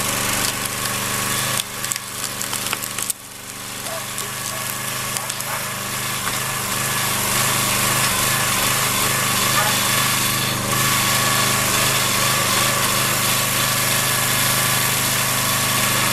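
Small gas engine of a log splitter running steadily while the splitter forces a wedge through big rounds of oak, the wood creaking and cracking as it parts.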